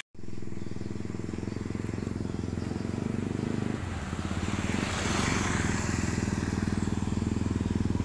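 Supermoto on a Honda CRF250 frame with a Yamaha Vixion single-cylinder four-stroke engine, running as it is ridden toward the listener. The engine note dips briefly about four seconds in, then grows steadily louder with a hiss rising over it.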